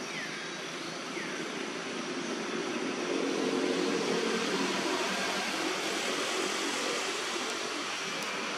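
Steady mechanical drone, like distant engine noise, swelling for a couple of seconds about three seconds in and then easing back.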